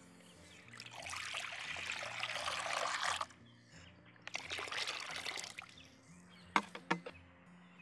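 Water poured from a steel tumbler into a black cooking pot in two pours, the first longer, with a short break between. Near the end come two sharp clicks in quick succession.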